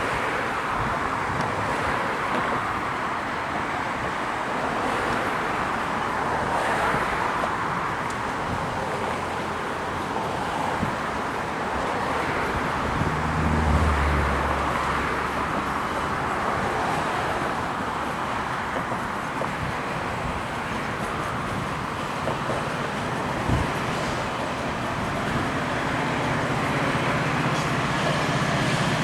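A train moving through the station: steady rolling noise of wheels on rail. A low locomotive engine hum swells about 13 seconds in and returns near the end.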